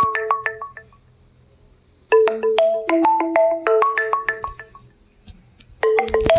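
Phone ringtone: a short melody of quick, bright mallet-like notes that plays, stops for about a second, and loops. The tail of one loop dies away at the start, a full loop plays about two seconds in, and the next begins near the end.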